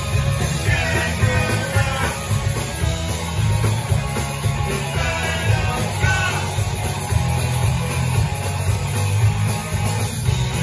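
Live punk rock band playing loud, with electric guitars and drums.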